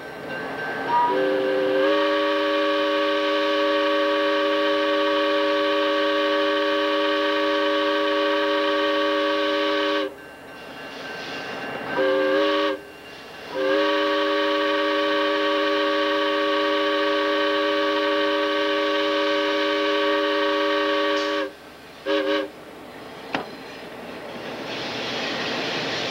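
Diesel locomotive's multi-chime air horn sounding a chord in long and short blasts: a long blast of about eight seconds, a short one, another long one, then a brief toot. This follows the long-long-short-long pattern of a grade-crossing signal. The locomotive's engine and rail noise grow louder near the end.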